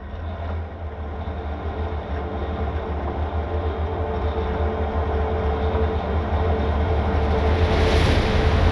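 Overland 4x4 driving at speed on a paved road: a steady low engine and tyre rumble with road noise, slowly growing louder.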